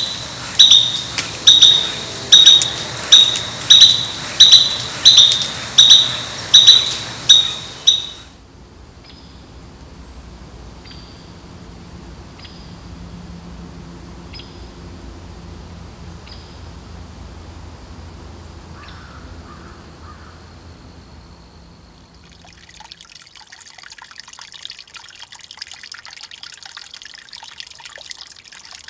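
A bird calling a loud, evenly spaced series of high notes, about three every two seconds, stopping after about eight seconds. Then only faint, spaced high calls are heard over a low hum, and from about 23 seconds in, water trickles.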